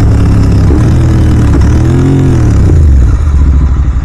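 Royal Enfield Continental GT 650 parallel-twin running through a Red Rooster aftermarket exhaust while riding. About two seconds in, a rev rises and falls, and near the end the engine drops to a lower, uneven beat as the throttle comes off.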